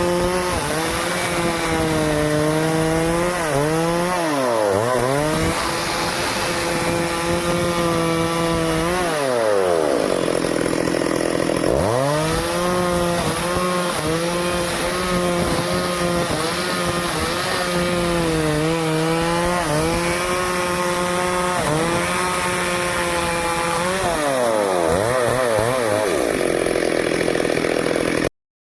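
Stihl two-stroke chainsaw running at high revs while cutting teak wood. Its engine speed falls sharply and climbs back a few times, about four, ten and twenty-five seconds in. The sound cuts out briefly just before the end.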